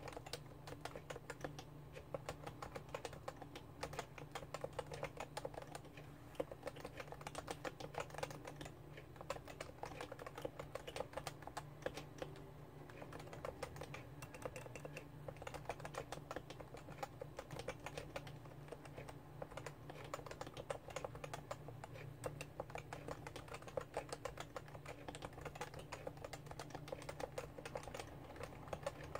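Fast, continuous typing on a Topre Realforce R2 keyboard, its electro-capacitive rubber-dome-and-spring key switches clicking in a dense, unbroken stream of keystrokes.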